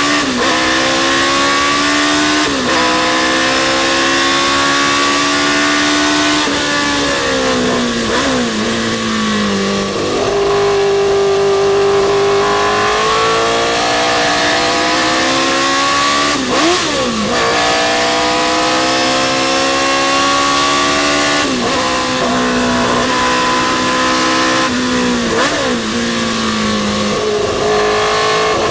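A historic sports racing car's engine at racing pace. It climbs in pitch and drops sharply at each upshift, with falling pitch and quick V-shaped dips where it slows and changes down.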